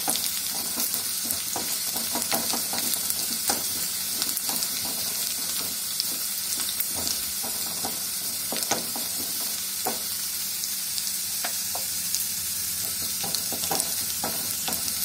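Sliced shallots and dried red chillies sizzling in hot oil in a small kadai, stirred with a spoon, with irregular sharp clicks now and then. This is the tempering being fried until the chillies brown.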